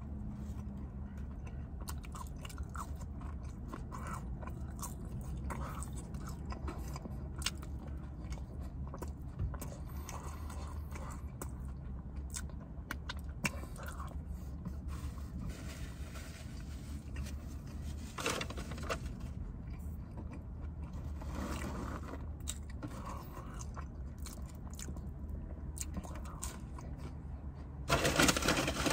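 Close-up chewing and biting of McDonald's chicken nuggets and French fries: wet mouth sounds and scattered small crunches over a steady low hum, with a louder burst of noise near the end.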